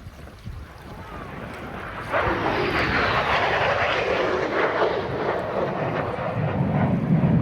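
Low-flying military jet passing: a sudden loud jet noise comes in about two seconds in, with a falling sweep in pitch as it goes over, and stays loud.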